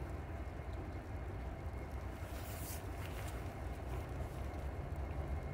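Distant Norfolk Southern diesel locomotives rumbling low and steady as they approach, with a brief hiss about two and a half seconds in.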